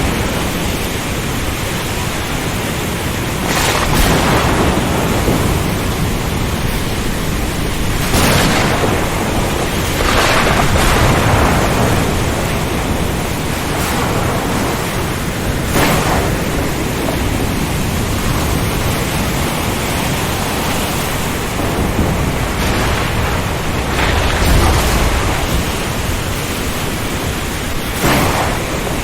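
Storm at sea: a steady, loud wash of wind and rain with heavy crashing surges every few seconds, and a deep rumble about three quarters of the way through.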